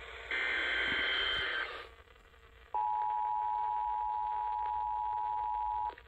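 Emergency Alert System weekly test relayed over FM radio and heard through the radio's speaker: the last of the buzzy digital SAME header bursts, ending about two seconds in, then after a short pause the steady two-tone EAS attention signal, held for about three seconds and cutting off just before the end.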